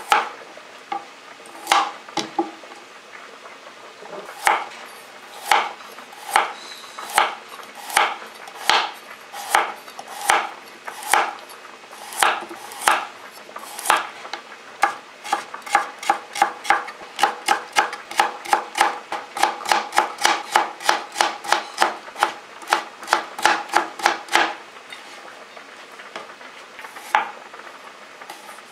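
Chef's knife slicing a carrot on a plastic cutting board: a run of sharp knocks as the blade meets the board, about one a second at first, then quickening to about three a second, stopping near the end before a couple more cuts.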